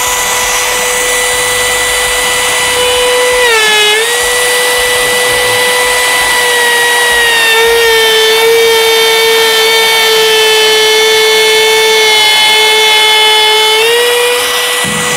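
Compact trim router with a bearing-guided bit trimming the edge of a plywood panel. It runs as a steady high whine that sags in pitch as the bit bites into the wood: briefly about four seconds in, then for a longer stretch from about halfway until near the end, when it comes back up to speed.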